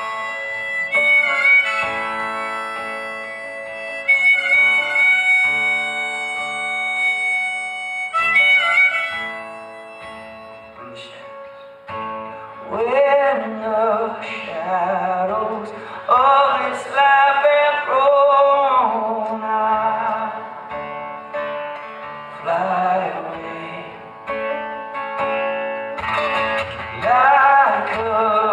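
Live acoustic guitar with a man singing into a microphone. The first ten seconds or so are an instrumental passage of long held high notes over the guitar. The singing comes in about twelve seconds in.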